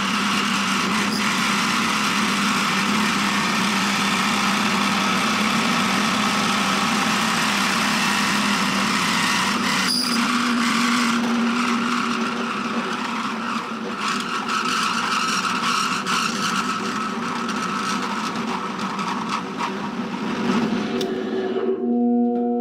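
Drill press running at about 3,000 RPM with a flattened driver bit pressed hard onto a steel washer, friction welding it to the steel beneath: a steady motor whine over rough scraping noise that eases off slightly partway through.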